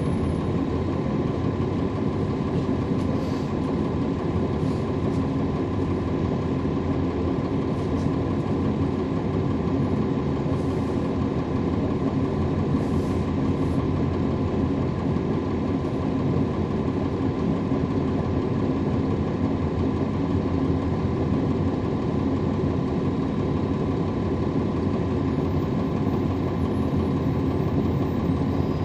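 Cummins ISL9 inline-six diesel engine of a NABI 40-SFW transit bus, heard from inside the bus, running with a steady, unchanging engine note.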